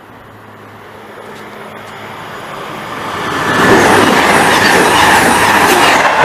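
A train passing at speed: its rush of wheel and rail noise builds steadily from faint to very loud about three and a half seconds in, holds, and begins to fade near the end.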